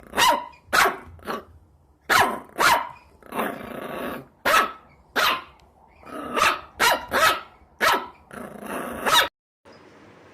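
A dog barking repeatedly in short, sharp barks mixed with a few longer, rougher ones, stopping about nine seconds in.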